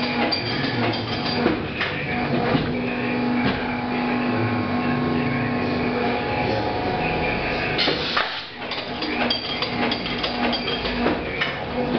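A plastic gallon-cap recycling machine running, with a steady hum and repeated clattering knocks.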